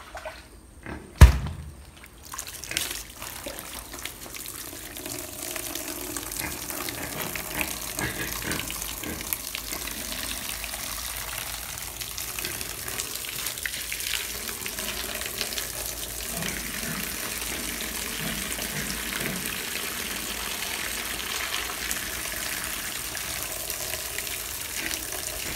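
Water pouring in a steady stream onto a metal pig feeder pan, splashing over its cone-shaped centre, building up from about four seconds in. A single sharp knock about a second in is the loudest sound.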